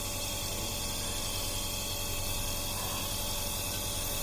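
Nebulizer running steadily, a continuous motor hum with hiss, as it puts out medicine mist for a child's cough.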